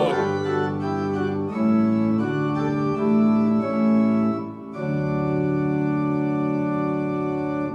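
Organ playing the closing chords of a hymn: a few sustained chord changes, then one long held final chord that cuts off near the end, leaving the church's reverberation.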